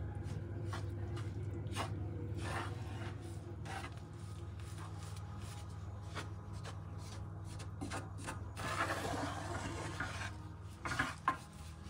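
Wooden spoon scraping and rubbing against the bottom of an aluminium frying pan as toasted flour and solid fat are stirred together, in many short strokes. A steady low hum runs underneath.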